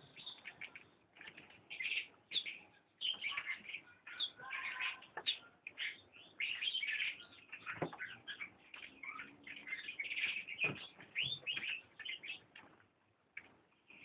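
Canary chicks chirping: a dense run of rapid, short, high calls that thins out near the end, with two brief knocks.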